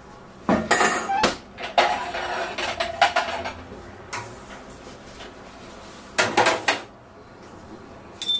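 Kitchen clatter of plates, pans and utensils in irregular bursts as pizzas are plated and handled. Near the end a high electronic beep starts.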